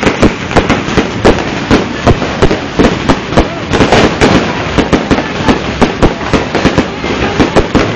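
Fireworks going off: a rapid run of sharp bangs and crackles, several a second, without a pause.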